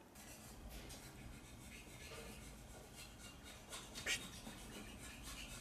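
Faint rustling and scraping with scattered light clicks, one sharper click about four seconds in.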